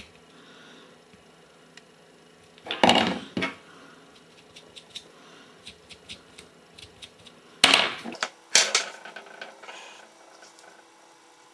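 Hand work on a stripboard with a craft blade and a soldering iron. There are loud scraping, rustling bursts about three seconds in and again around eight seconds, with light clicks and taps between.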